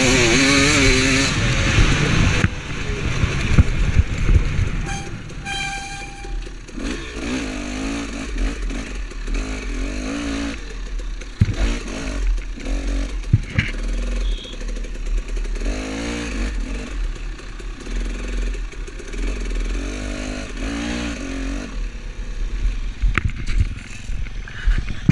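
Dirt bike engine heard from the rider's helmet camera, running at high revs at first and dropping off about two and a half seconds in as the bike slows, then low revs with short rising and falling throttle blips while it rolls slowly.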